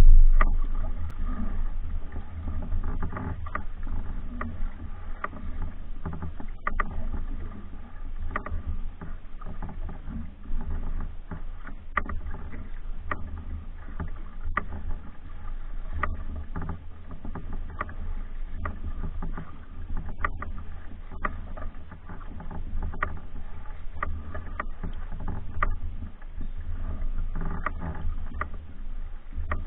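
Paddling a pack canoe: the wooden paddle dipping and pulling through the water, with scattered light splashes and knocks at irregular intervals over a steady low rumble.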